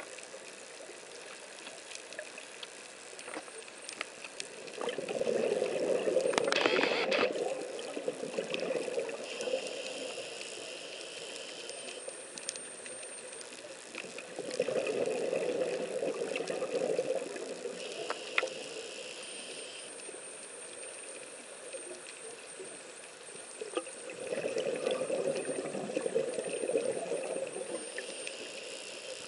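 Scuba diver's breathing through a regulator underwater: three long gurgling bursts of exhaled bubbles about ten seconds apart, with faint clicks and hiss in between.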